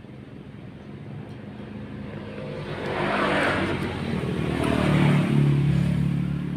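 A motor vehicle's engine running and growing louder as it comes near, loudest about five seconds in, settling into a steady low hum.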